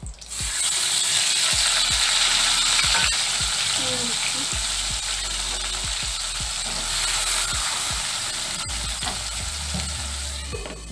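Chopped tomatoes hitting hot mustard oil in a kadai and sizzling, starting suddenly about half a second in and easing a little later on. A spatula knocks and scrapes against the pan as they are stirred.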